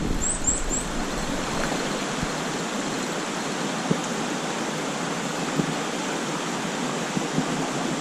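Steady rushing of a shallow mountain stream running over rocks, with three quick high chirps about half a second in and a few faint knocks.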